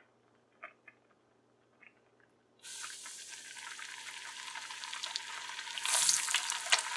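Flour-coated boiled egg frying in hot oil in a small aluminium karahi. After a few faint taps, the oil starts to sizzle about two and a half seconds in and grows louder, with a louder burst of sizzling and crackling about six seconds in as a second egg goes into the oil.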